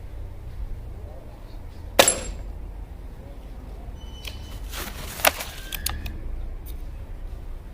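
A Snowpeak GR800S gas-piston air rifle fires once about two seconds in, a single sharp crack with a short ring. Around five seconds in comes a quick run of clicks and knocks.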